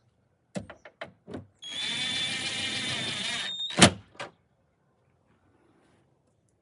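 Ryobi cordless impact driver run in one steady burst of about two seconds, with a high whine, between sharp clicks of the tool and fasteners being handled; a loud click follows right after it stops.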